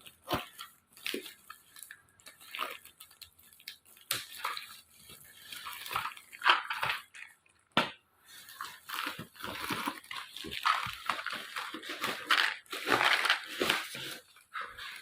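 Irregular clicks and rustling of small plastic parts being handled, coming in uneven clusters.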